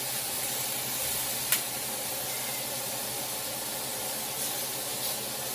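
Chicken sizzling in a greased grill pan: a steady hiss, with one sharp click about a second and a half in.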